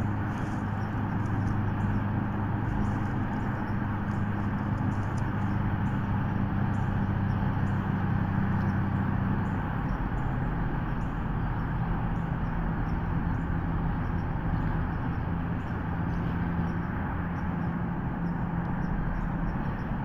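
A steady low mechanical hum under a constant rushing noise, the hum dropping to a single slightly different pitch about halfway through.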